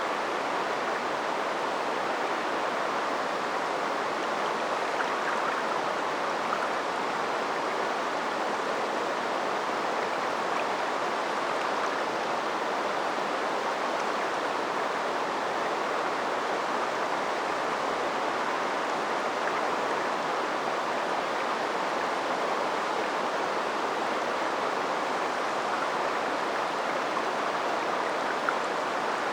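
River water flowing steadily: an even, unbroken rushing of a small river.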